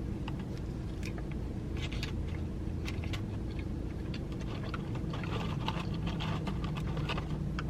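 A person chewing a crispy hot and spicy McChicken sandwich close to the microphone, with scattered small crunches and mouth clicks over a steady low hum.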